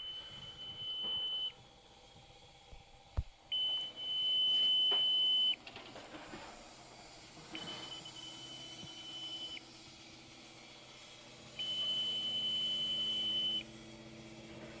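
Electronic warning beeper sounding long, steady high beeps of about two seconds each, one every four seconds, four times. A single sharp knock comes about three seconds in.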